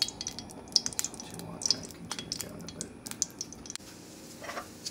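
Hot coconut oil crackling and spitting in a nonstick frying pan as a scoop of banana-moringa fritter batter goes in. There is one sharp knock near the end, after which the crackle settles into a smoother, steady sizzle.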